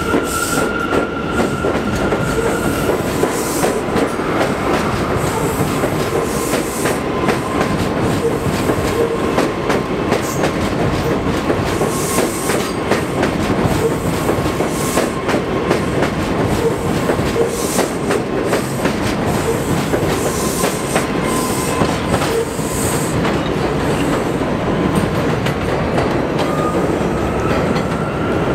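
Bombardier R179 subway train running past on elevated track: a steady rumble with the wheels clicking rapidly over rail joints and a faint, steady high tone.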